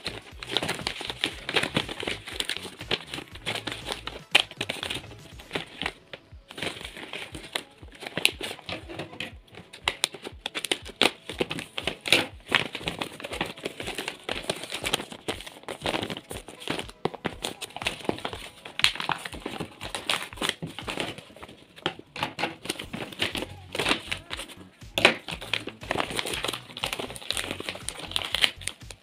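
Sheets of paper and aluminium foil crinkling and rustling as they are handled and folded by hand, a dense run of irregular crackles.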